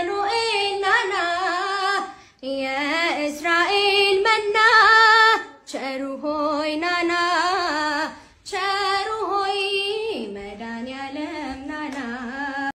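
A woman singing an Ethiopian Orthodox hymn (mezmur) in Amharic. A single voice carries the melody in long phrases, broken three times by short pauses for breath.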